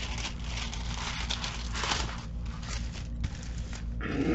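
Clear plastic protective film on a diamond painting canvas crinkling and rustling in irregular swishes as hands lay it back down and smooth it flat over the canvas.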